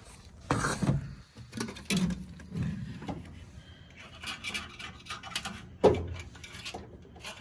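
Hand work on metal furnace parts: irregular knocks, clicks and clatter, with a stretch of scraping about four seconds in, as tools and parts are handled while the burner is being cleaned out.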